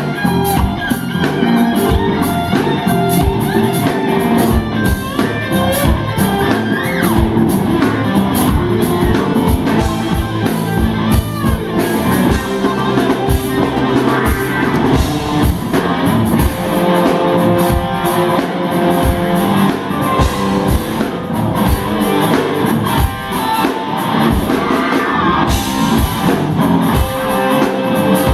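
Live instrumental rock band playing: an electric lead guitar over bass guitar and a steady drum beat.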